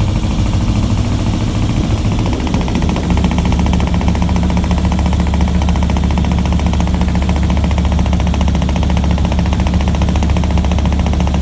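Volvo Penta MB10A (Marna S) inboard boat engine picking up speed about two seconds in as the throttle is opened. It then runs steadily at higher revs with a rapid, even exhaust beat.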